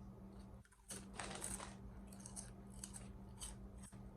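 Bag of pickle chips crackling and crunching: a handful of short, crisp crackles at irregular intervals, fairly faint.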